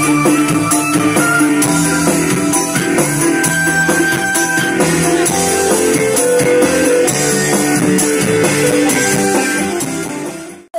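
Electric guitar played through a multi-effects pedalboard and a stage sound system, with long held notes over other music. It dies away near the end.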